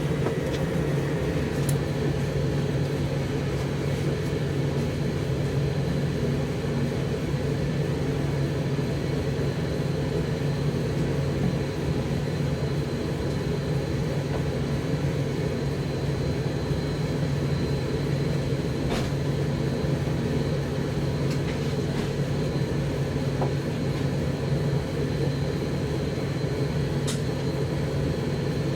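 Zanussi TD162 compact tumble dryer running on high heat: a steady low hum of the drum motor and fan with an even rushing of air, and a few faint clicks now and then.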